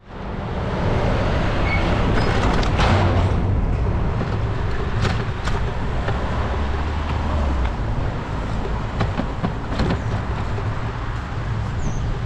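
Road traffic heard from a moving bicycle, with wind rumbling on the microphone and scattered sharp ticks.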